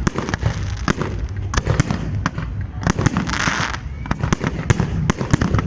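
Fireworks display: a rapid, irregular series of bangs from bursting shells over a steady low rumble, with a burst of hissing crackle about three seconds in.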